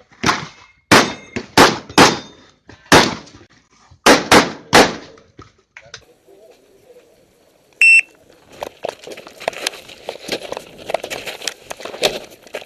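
Saiga 12 semi-automatic shotgun firing a rapid string of about nine shots in quick pairs and singles over the first five seconds. After a pause a short high electronic beep sounds, followed by scuffling and light clattering.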